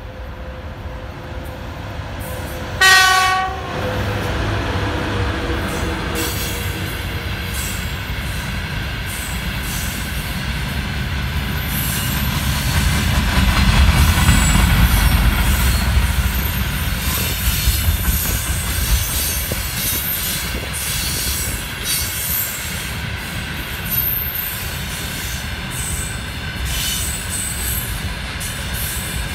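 VL80 electric locomotive sounding one short horn blast about three seconds in, then rolling past with a container freight train. The wagon wheels make a steady rumble on the rails with rail-joint clicks and occasional high squeals, loudest in the middle as the wagons pass close.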